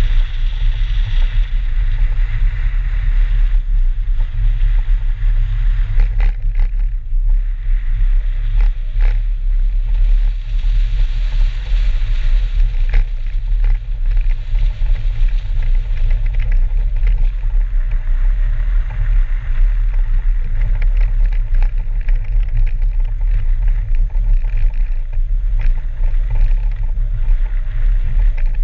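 BMW 320 race car driving fast over a snow and ice track, heard through an exterior-mounted camera: a heavy, steady wind rumble on the microphone over the engine and tyre noise, with scattered sharp knocks between about six and thirteen seconds in.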